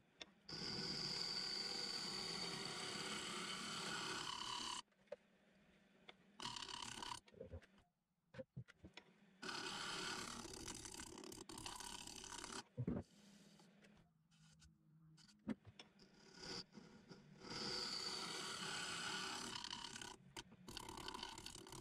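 Turning tool cutting into a cracked, super-glued oak bowl spinning on a Jet wood lathe, in several separate passes of a few seconds each, some with a high thin whistle. The workpiece is being tested to see whether the glued cracks will hold.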